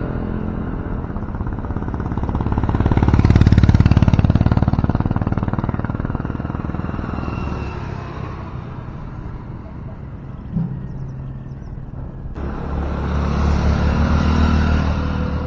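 Motorcycles and scooters passing close by on a road, their engine sound swelling and fading twice: loudest about three to four seconds in and again near the end. A short knock sounds about ten and a half seconds in.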